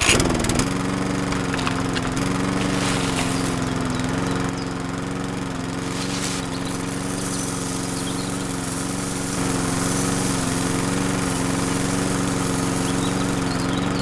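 Small electric motor of a miniature sunflower-seed threshing machine clicked on at a rocker switch: it spins up within a fraction of a second, then runs with a steady whir and rattle as its drum threshes a sunflower head.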